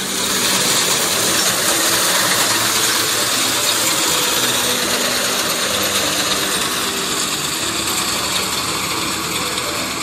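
Tractor-mounted wheat reaper cutting, its cutter bar clattering over the running tractor engine in a steady, dense mechanical rattle.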